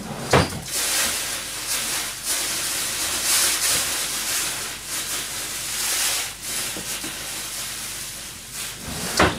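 A steady, loud hiss, starting with a knock about half a second in and stopping with another knock near the end.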